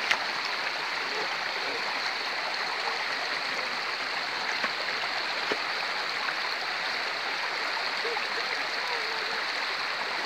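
Shallow rocky stream running steadily over small cascades between stones, a constant rush and babble of water. A brief knock sounds right at the start.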